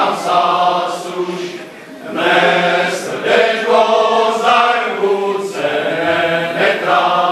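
A men's folk choir singing a Moravian folk song unaccompanied, several male voices in harmony. One phrase ends about two seconds in and, after a brief breath, the next phrase begins.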